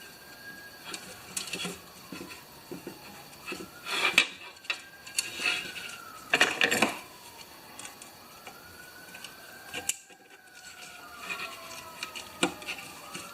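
Light metallic clinks and rubbing from hand-working the parts of a Honda HR214 mower's recoil starter, loudest about four and six and a half seconds in, over a faint police siren wailing up and down.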